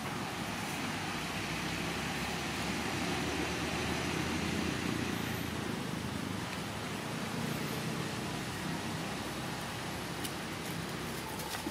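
Steady outdoor background noise, a low rumble with a hiss over it, swelling about four to five seconds in and then easing.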